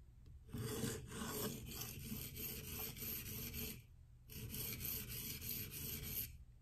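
Steel knife blade, a reground CruWear Manix 2, stroked back and forth across a Venev resin-bonded diamond waterstone: a dry scraping rasp of quick sharpening strokes in two runs, with a short pause about four seconds in. The edge is being ground at about 15 degrees to set an apex.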